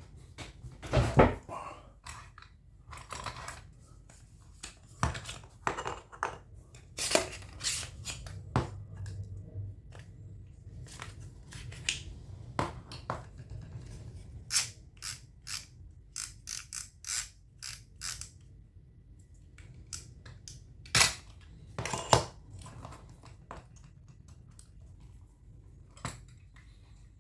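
Small hard objects handled on a work surface: irregular clicks, taps and short scrapes, with a few louder knocks about a second in, around seven seconds, and around twenty-one and twenty-two seconds.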